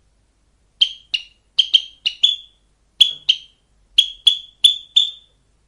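Sparrow chirping: about a dozen short, high cheeps, often in quick pairs, roughly two a second.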